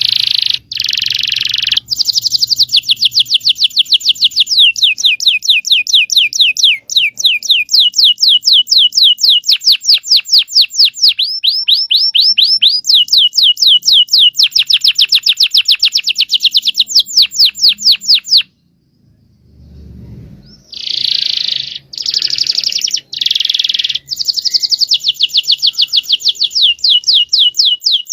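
Domestic canary singing long rolling trills: fast, evenly repeated high chirping notes in runs whose note type changes every second or two. The song breaks off about two-thirds of the way through and starts again a couple of seconds later.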